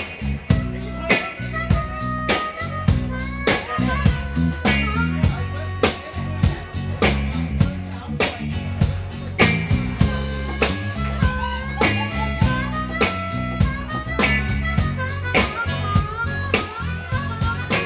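Live blues band playing, with a harmonica solo of bending notes over bass, guitar and a steady drum beat.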